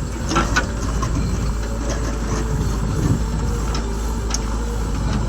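Heavy vehicle engine running steadily, with a few brief clanks.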